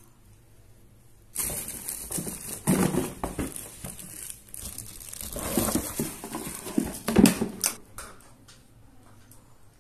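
Clear plastic wrapping crinkling and rustling as a boxed electric spray gun is handled and lifted out of its cardboard box, starting about a second and a half in, with a sharp knock about seven seconds in.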